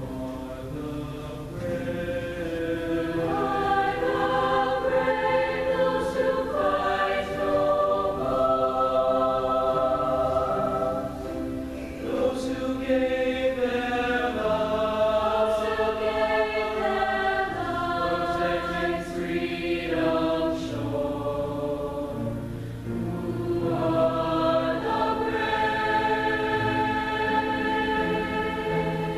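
Choir singing a slow song in long held chords, phrase by phrase.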